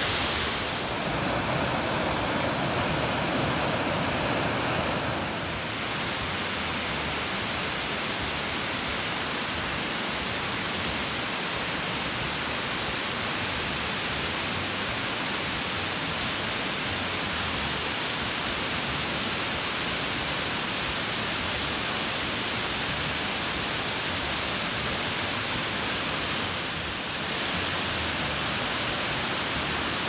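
Shiraito Falls' many thin cascades pouring down a cliff face into a pool: a steady, even rush of falling water. It shifts slightly about five seconds in and again near the end as the shots change.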